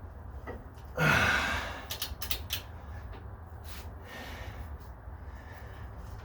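A loud exhale of effort about a second in, then a handful of sharp, irregular metallic clicks from wrench and socket work on the shock mounting bolts, over a low steady hum.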